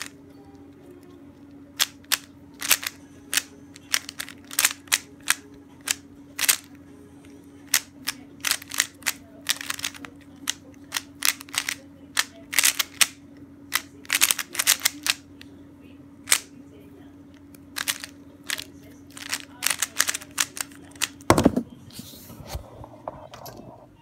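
Plastic 3x3 Rubik's cube being turned fast in a speedsolve: runs of sharp clicking clacks as the layers snap round, in irregular bursts with short pauses. A steady low hum runs underneath and stops with a heavy thump near the end.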